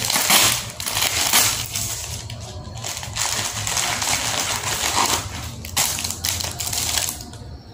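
Plastic packaging crinkling and rustling in irregular bursts as a package is torn open and its plastic-wrapped contents are handled; it eases off near the end.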